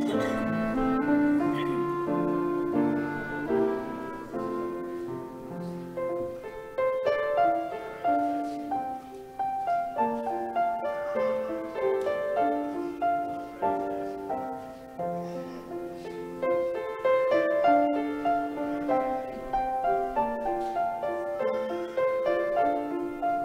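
Piano music: notes and chords struck one after another at a gentle, even pace.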